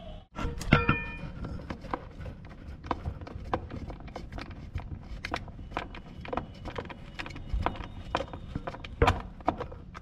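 Irregular clicks and knocks of a screwdriver working the mounting screws of a washing machine gearbox's plastic housing, with two louder knocks, one about a second in and one near the end.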